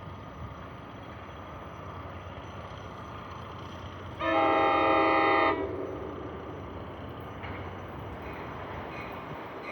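An NJ Transit train's horn sounds one short blast of about a second and a half, several notes at once as a chord. Afterwards the approaching train rumbles steadily, with faint clicks near the end.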